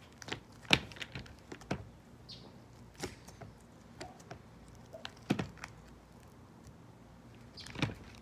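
Slime and its small plastic container being handled, with irregular clicks and taps every second or so; the loudest is about a second in.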